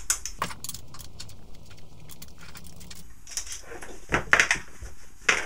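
Small metal hand tools clinking on a workbench and a cordless drill being handled, a run of sharp clicks and knocks, the loudest cluster about four seconds in.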